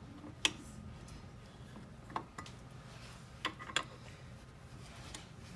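A handful of light, irregularly spaced metallic clicks as an Allen key is fitted into and turned in the screws of a clay extruder's die holder, over a faint steady low hum.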